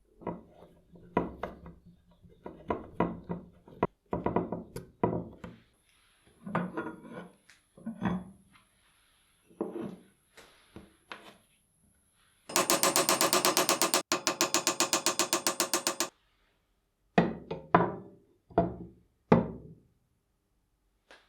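Knocks and clinks of metal parts being handled, with a run of rapid, even clicks, about ten a second, lasting a few seconds midway.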